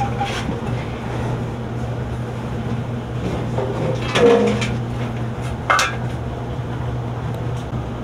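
Maytag electric dryer's sheet-metal drum clanking and scraping as it is pulled out of the cabinet and set down, with a louder clank a little past the middle and a sharp knock about a second and a half later.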